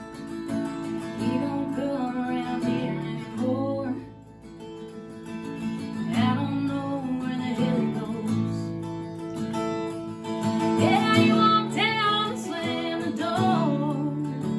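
A woman singing over a strummed acoustic guitar, in a slow song.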